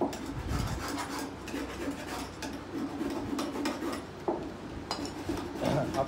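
A thin tool scraping and tapping inside a small plastic cup: an uneven string of short scrapes and light clicks.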